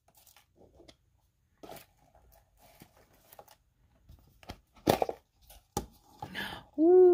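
A surprise toy egg being handled and opened: scattered small clicks and crinkles, with a louder sharp crackle about five seconds in and another just under a second later.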